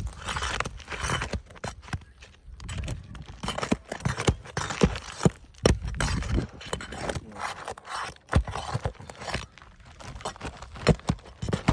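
Asphalt architectural shingles being scraped and worked loose, with irregular scraping and crunching and many sharp clicks and knocks.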